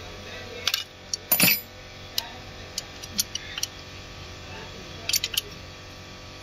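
Metal hand tools clinking and tapping against metal in a handful of sharp, separate clicks, the loudest about a second and a half in and a quick cluster near five seconds. This is hand work on the engine's timing, with the cam and crank locking tools in place.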